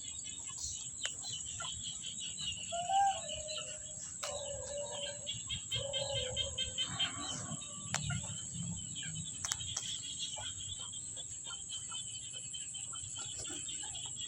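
Chickens clucking, a few short calls in the first half, over a steady high-pitched buzz.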